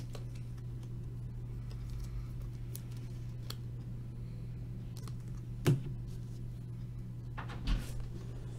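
Trading cards and wrappers being handled on a table: scattered light clicks and taps, with a sharper click a little past halfway and another near the end, over a steady low hum.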